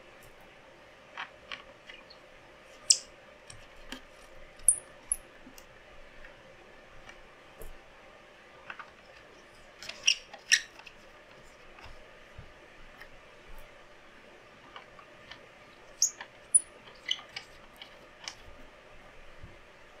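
Small case parts and hardware being handled and fitted together during hand assembly of a PC case: irregular sharp clicks and taps, several louder clacks a few seconds apart, over a faint steady hum.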